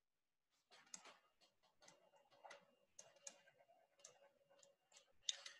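Near silence broken by faint, irregular clicks: a stylus tapping on a tablet screen while handwriting.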